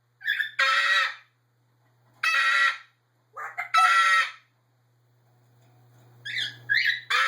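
Parrot screeching: five loud, harsh calls of about half a second each, with gaps between, several of them led by a short, higher note.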